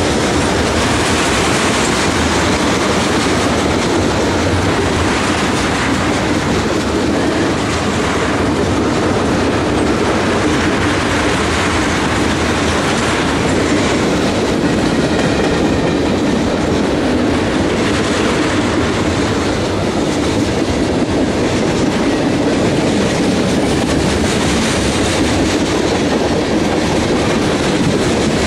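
Freight cars (tank cars and covered hoppers) of a Canadian National freight train passing close at speed: a steady, loud rumble and rattle of steel wheels on the rails.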